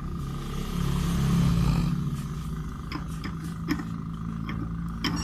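A steady low mechanical hum with a louder rumble swelling about a second in, and a few light clicks as the greased CV joint is worked onto the drive shaft by hand.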